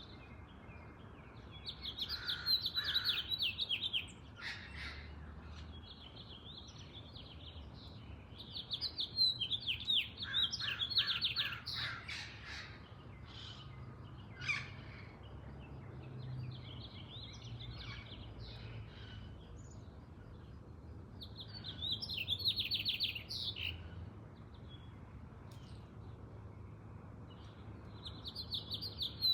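A songbird singing in phrases of rapid, repeated high notes, each phrase lasting about two seconds, four times with pauses of several seconds between. A faint steady low hum sits underneath.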